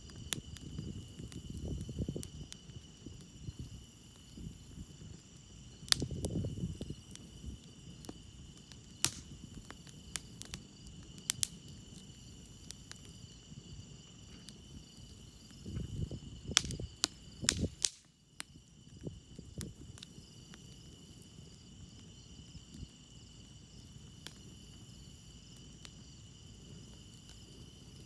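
Campfire crackling, with sharp wood pops scattered through and a few low rumbling surges, over a steady chorus of crickets chirping.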